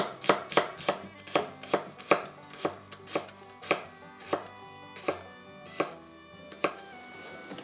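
Kitchen knife mincing garlic on a wooden cutting board: sharp chops, quick at first and slowing down, the last one near the end.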